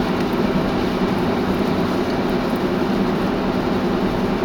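Steady road and engine noise inside a moving vehicle's cabin, an even rumble with a low hum.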